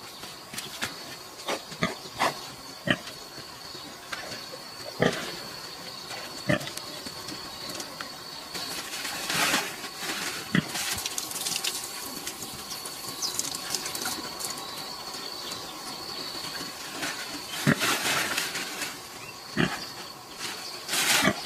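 Dry banana leaves rustling and crackling in irregular bursts as they are piled up and a heavily pregnant sow noses and pushes through the heap.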